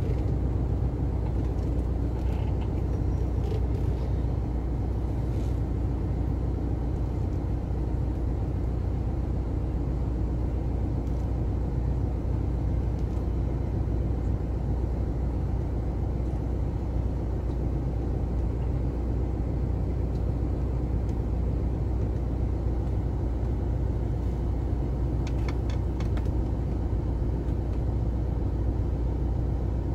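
A car's engine running as the car creeps along slowly, a steady low rumble heard from inside the cabin. A few faint clicks come near the end.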